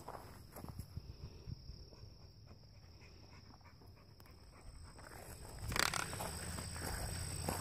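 A dog panting and moving about close by, with a sudden scuffing noise about six seconds in, after which the movement noise stays louder. A steady high-pitched tone runs underneath.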